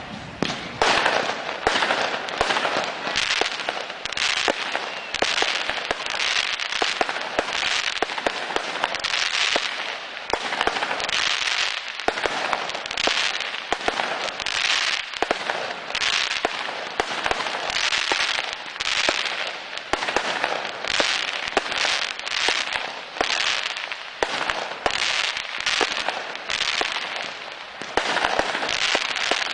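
Fireworks display: a steady run of bursts about one a second, each a hissing crackle, with sharp bangs scattered throughout.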